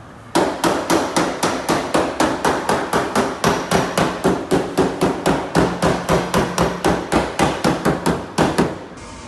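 A hammer beating sheet metal during car body repair on a Toyota Fortuner, with even, rapid blows at about four a second, each ringing briefly. The blows stop shortly before the end.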